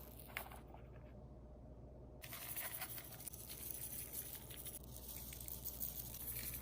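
Bee pollen granules sprinkled onto dog food, a faint pattering with many small ticks from about two seconds in. A single small click comes about half a second in.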